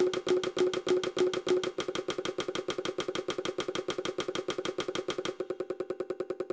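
Several interlocking rhythms of rapid, evenly spaced synthesized percussive ticks sounding together as a polyrhythm. The layers drop out one at a time: the lowest, loudest pitched tick stops a little under two seconds in and another layer stops after about five seconds, leaving thinner fast ticking near the end.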